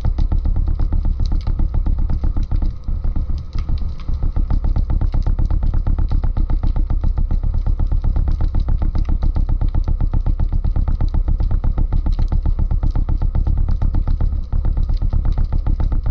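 Motor heard through the water, running steadily with a rapid, even pulse of about ten beats a second over a deep rumble, as a boat engine and propeller sound on an underwater camera.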